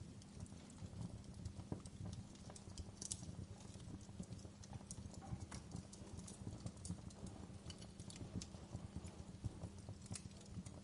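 Wood fire crackling: irregular sharp pops and snaps, a few louder than the rest, over a low steady rumble of burning.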